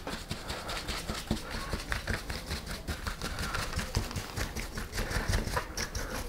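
A brush scrubbing caked dirt and mud off an RC buggy's chassis: quick, irregular scratchy strokes of bristles against the chassis.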